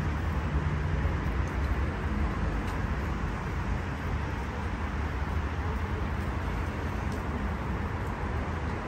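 Steady noise of busy multi-lane highway traffic, passing cars blending into a continuous low rumble.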